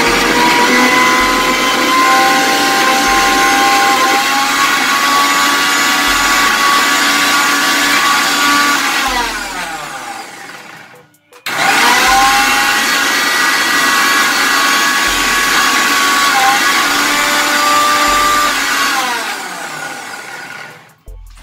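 Electric mixer-grinder with a steel jar grinding boiled spinach into a fine paste: the motor runs with a steady high whine, winds down with falling pitch about nine seconds in, stops briefly, then starts again with a rising whine and runs until it winds down again near the end.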